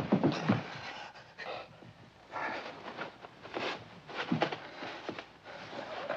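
Men panting and grunting hard as they grapple in a hand-to-hand fight, with scuffling and a few knocks near the start.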